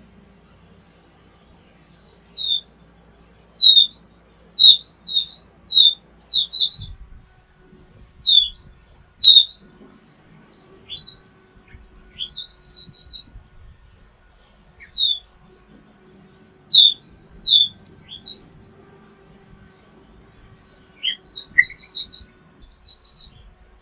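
A songbird singing in four bouts of quick, high, twisting chirps and whistles, with short pauses between the bouts.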